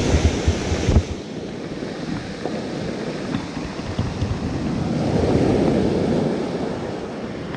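Ocean surf breaking and washing up the beach, a wave surging in and building about five seconds in. Wind buffets the microphone during the first second.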